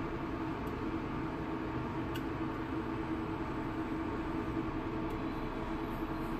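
Commercial induction cooker running with a wok of water on it: a steady whirring from its cooling fan with a constant hum.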